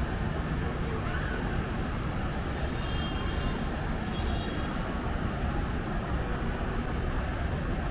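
Steady rumble of city road traffic, with two faint, short high beeps about three and four seconds in.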